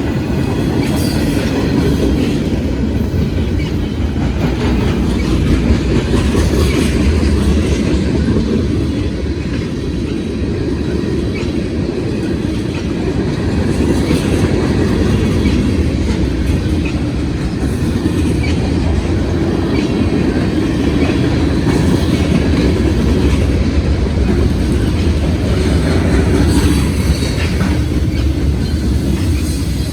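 Freight train cars rolling past: a steady, loud rumble of wheels on rail with clickety-clack over the rail joints.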